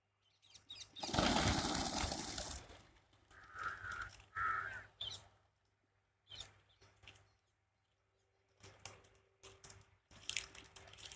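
Birds: a loud rushing noise lasting about a second and a half, then two short harsh bird calls, followed by scattered rustles and clicks.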